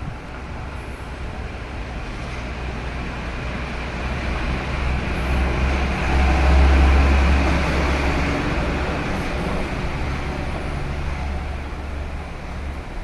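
Low rumbling road-vehicle noise that swells to a peak about six to eight seconds in and then eases off, like a vehicle passing.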